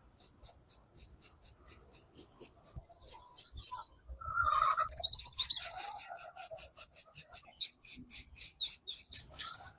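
Alarm clock movement ticking, sharp and high-pitched at about five ticks a second. A louder warbling squeak lasts about two seconds in the middle.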